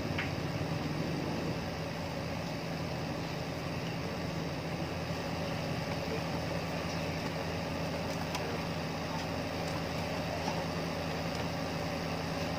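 A steady low mechanical hum, as of a motor running, with a few faint clicks.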